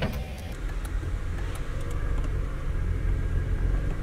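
A car's engine and road rumble heard from inside the cabin as it is driven slowly: a steady low rumble.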